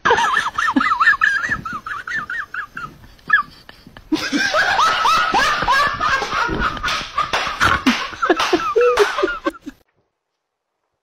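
A person laughing in quick, high-pitched bursts, dying down briefly, then starting again and cutting off suddenly near the end.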